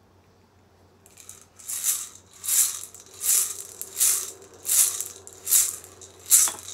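Handheld rattle shaken in a steady slow beat, about seven rustling shakes roughly three-quarters of a second apart, starting about a second and a half in.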